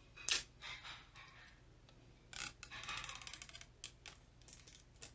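Clear plastic wrapper crinkling and scraping as it is slit and peeled off a small lipstick box with a thin metal tool. A sharp click comes about a third of a second in, then scattered scratches, a quick crackling run around the middle and a few light ticks.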